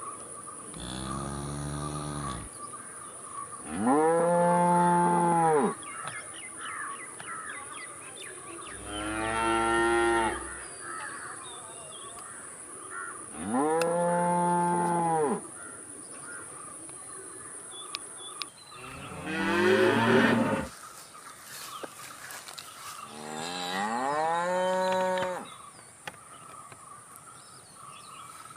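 Cows mooing: six separate long moos, each about two seconds, rising then falling in pitch, with a few seconds between calls.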